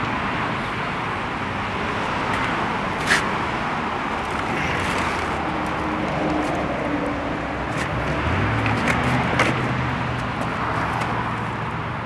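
Steady outdoor background noise of road traffic, with one sharp click about three seconds in and a low hum coming in over the last few seconds.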